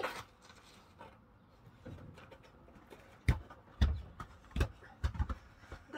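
A football being kicked about: about five thumps in the second half, a couple of them close together near the end.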